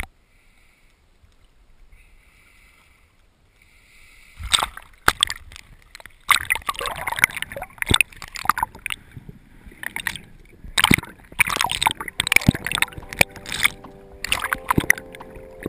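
Water splashing and sloshing against a head-mounted GoPro in its waterproof housing as a swimmer moves through shallow sea, with irregular sharp splashes and knocks starting about four seconds in. A steady hum comes in near the end.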